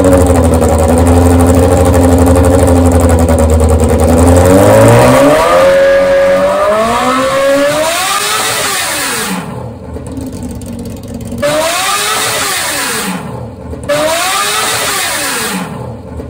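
Straight-piped 1000 cc superbike engine (Kawasaki ZX-10R) in a drag kart, held at steady high revs for about five seconds, then revved up and let fall back several times. It is very loud, close to 130 dB on a sound level meter at the exhaust.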